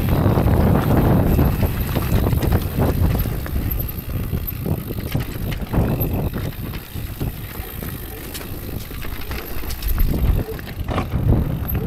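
Orbea Rise electric mountain bike rolling down a loose, stony dirt trail: tyre crunch over gravel and rocks with rattles and knocks from the bike over the bumps, and wind noise on the microphone. Loudest and roughest over the first few seconds, then easing.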